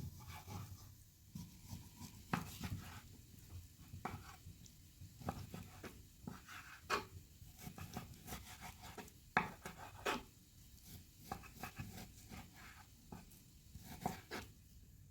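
Food-preparation handling sounds: irregular light knocks and taps, the louder ones a few seconds apart.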